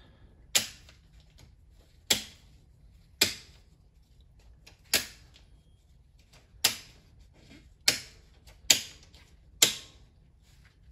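Circuit breakers being switched on one after another: eight sharp toggle snaps, irregularly spaced about a second apart, as house circuits are brought onto the backup generator and its load rises.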